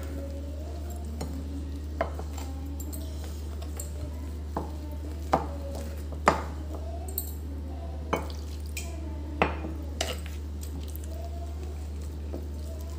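Wooden spatula stirring thick gram-flour (besan) batter in a glass bowl, with scraping and about eight sharp knocks of the spatula against the bowl, over a steady low hum.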